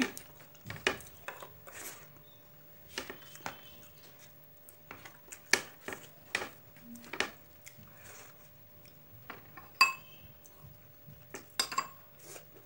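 Eating by hand from a ceramic plate: scattered short clicks, light clinks of fingers and food on the plate and bowl, and mouth sounds at irregular intervals, one clink about ten seconds in ringing briefly.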